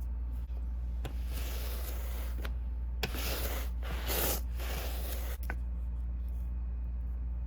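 Two stretches of hissing, rubbing noise, the second longer and louder, over a steady low hum, with a few light clicks.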